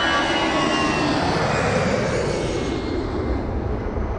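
Jet engines of a McDonnell Douglas MD-81 on its takeoff run: a loud, steady roar with a high whine on top. The whine fades about halfway through and the roar falls off near the end.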